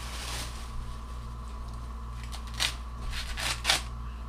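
Corn husks being ripped and stripped from ears of corn by hand, giving a few short crackly tears about halfway through and near the end. A steady low hum runs underneath.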